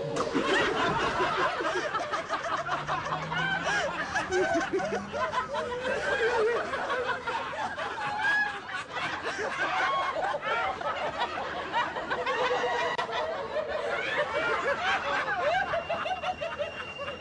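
Many people laughing at once: overlapping giggles, snickers and chuckles from several voices, continuous and densely layered.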